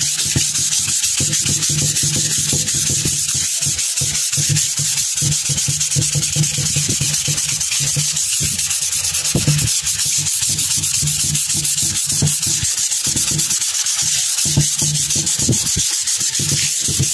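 Sandpaper scraping steadily over a wooden table top, smoothing down dried wood-filler patches before the water-based finish goes on. A steady low hum runs under it.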